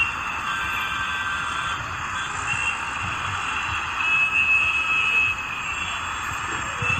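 Heavy traffic jam: many vehicle horns honking at once over a dense din of road traffic, swelling louder for a second or so about four seconds in.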